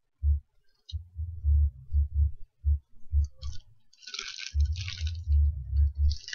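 A clear plastic bag crinkling and rustling as it is handled, in bursts about halfway through and near the end, over a run of short dull knocks that are the loudest sound.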